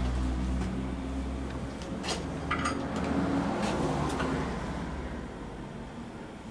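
A few sharp metallic clicks and knocks, one with a short ring, from hand tools and parts on a Ford Pinto engine as the crankshaft is turned round towards top dead centre, over a steady low hum that fades about two-thirds through.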